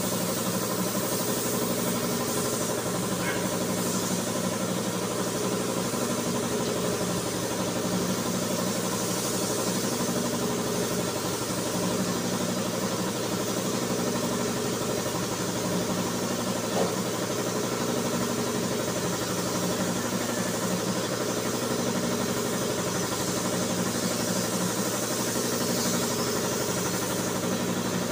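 Steady drone of shop machinery running in a car paint booth: a constant hum with an even hiss over it, unchanging throughout.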